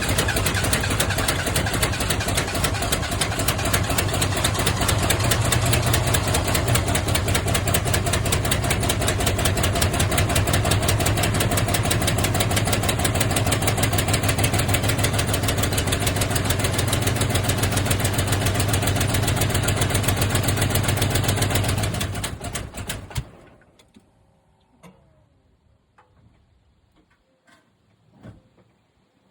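Ford 460 V8 with a 4350 four-barrel carburetor running for about twenty seconds, then fading out and stalling. The owner says it runs poorly and only with the gas pedal held down, and dies when the pedal is let off. A few faint clicks follow.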